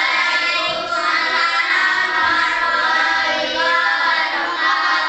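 A group of children singing together in unison, holding long notes.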